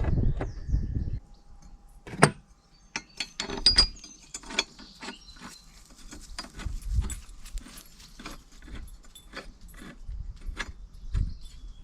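Irregular metallic clicks and clinks, like tools or mower parts being handled and set down, loudest about two and four seconds in.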